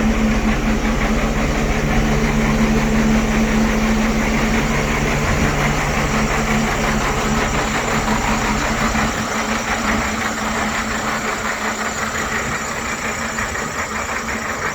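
Mercedes-Benz Arocs 4142 concrete mixer truck's inline-six diesel engine running steadily. A strong low hum drops away about nine seconds in, and the engine sound is a little quieter after that.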